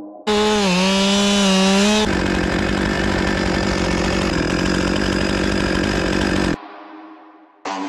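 Chainsaw running at full throttle, then cutting into wood for about four seconds; the sound cuts off suddenly about six and a half seconds in.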